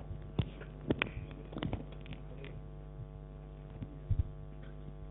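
Steady electrical mains hum from the auditorium's sound system, with a few scattered soft knocks and clicks.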